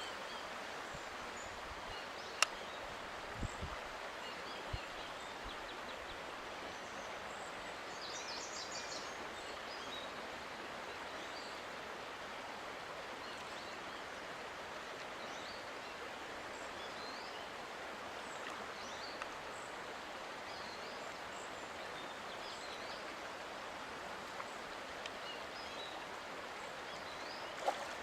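Steady rush of flowing stream water, with faint bird chirps now and then and a single sharp click about two seconds in.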